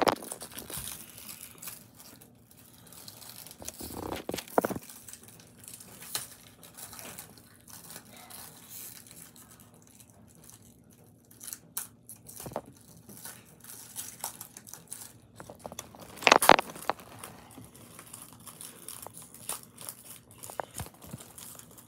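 Foil Disney trading-card pack being crinkled and torn open by hand: intermittent crinkling and tearing of the wrapper, loudest about sixteen seconds in.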